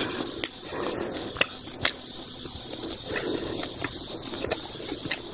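Close-miked eating sounds from a clip-on microphone: soft chewing and lip smacks, with a few sharp clicks scattered through.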